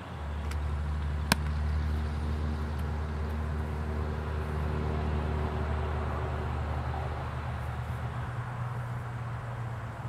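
Low, steady engine hum of a motor vehicle running nearby, fading out about eight seconds in. A single sharp smack stands out about a second in.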